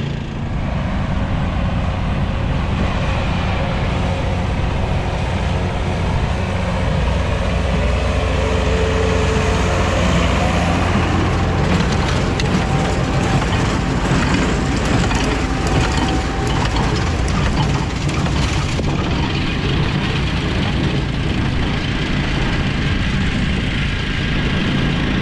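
A vehicle engine running steadily, with a stretch of rapid clattering and knocking in the middle.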